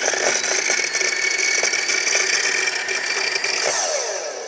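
Makita miter saw's electric motor running with a steady whine, then released about three and a half seconds in and spinning down with falling pitch. It is running weak and not coming up to full speed: "There's no way that's going fast enough."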